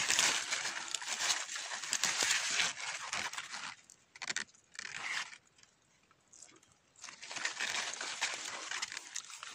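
Fig leaves rustling and brushing against each other as a hand reaches into the tree to pick figs. The rustling comes in uneven bursts: a long stretch at the start, short bursts in the middle and another stretch near the end.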